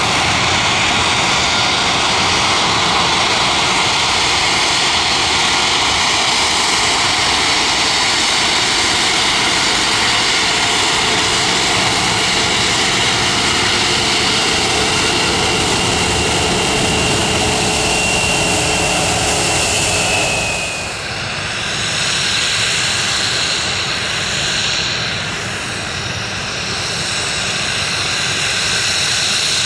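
Jet airliner engines running loud at close range: a dense roar with a high whine that slides slightly lower in pitch. About two-thirds of the way through it changes abruptly to a softer roar that swells and fades.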